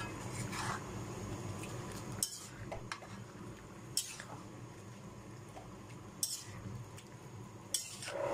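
Metal spatula clinking and scraping against a metal cooking pan while stirring fish pieces in coconut-milk broth, a handful of separate knocks one to two seconds apart.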